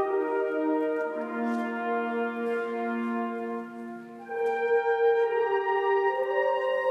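Symphony orchestra playing, the brass to the fore with long held chords. The chord changes about a second in, and a new, fuller chord comes in after a short dip about four seconds in.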